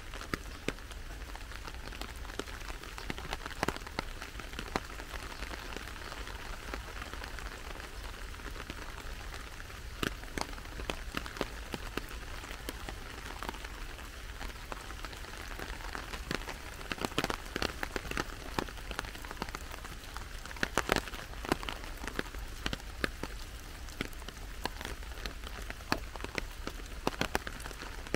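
Steady rain falling: an even hiss scattered with many sharp ticks of individual drops striking close by, with clusters of louder drops in the second half.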